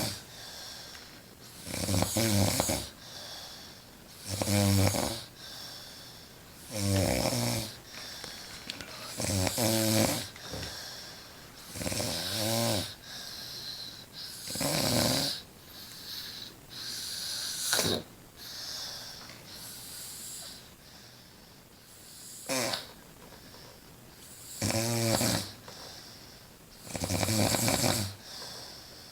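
A woman snoring loudly while asleep, one long snore roughly every two and a half seconds, with a pause of a few seconds about two-thirds of the way through.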